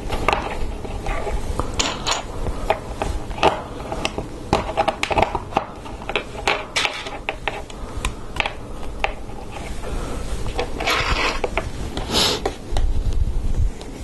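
Hard plastic LEGO Technic parts clicking, tapping and scraping as they are handled and pressed together by hand, a pin being pushed into a lift arm. The clicks come irregularly, with a longer scraping rustle near the end.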